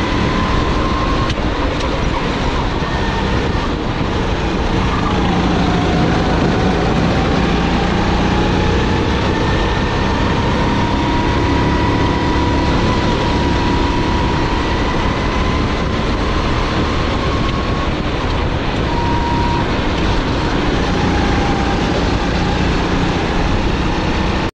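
SODI GT5R rental kart's 270 cc, 9 hp engine running hard on track, heard from the driver's seat under a steady rush of noise. Its note dips about five seconds in and climbs back over the next several seconds as the kart works through the corners.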